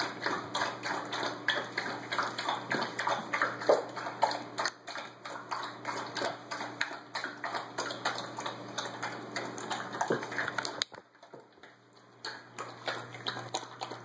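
Dog eating water-softened kibble from a plastic slow-feed bowl: rapid, irregular wet clicks of chewing and lapping, with a pause of about a second near the end.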